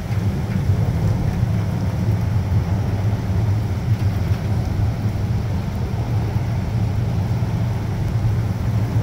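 Hurricane wind and rain, heard as a steady low roar with no separate gusts or impacts standing out.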